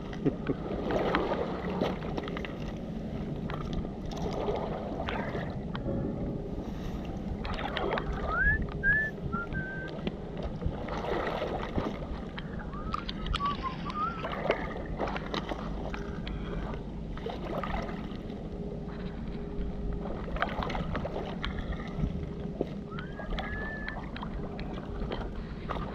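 Outdoor riverbank ambience on a wet foreshore: steady wind and water noise under a low hum, with irregular crunches and scrapes of footsteps and searching in the shingle, and a few short bird chirps.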